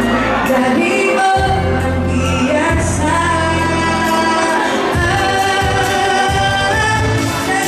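A song with singing voices over long held bass notes.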